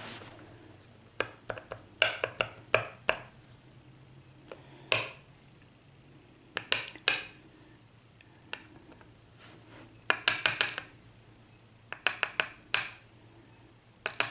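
Small metal clicks and clinks in short irregular clusters, with a slight ring: the pin tumblers from a gutted padlock plug being handled and set down on a hard surface.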